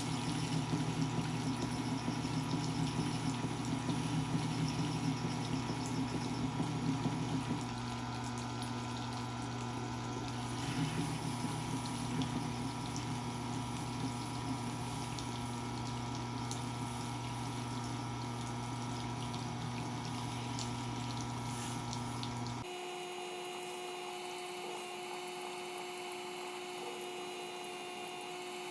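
Triton wetstone sharpener running with a steady motor hum as its wet stone turns. About 22 seconds in, the sound changes suddenly to a quieter, higher hum.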